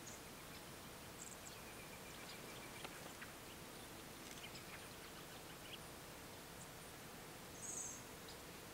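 Quiet outdoor ambience with scattered faint bird chirps and a faint steady hum, and a brief high twitter near the end.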